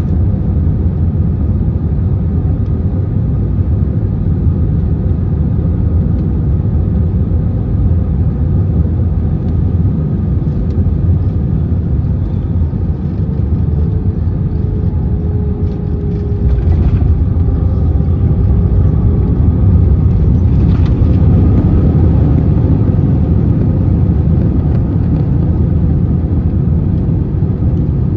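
Airbus A321 cabin noise heard over the wing during landing: a steady rumble of engines and airflow on final approach. About halfway through, a couple of bumps mark the wheels touching down. The rumble then grows louder as the airliner rolls out on the runway with its spoilers up.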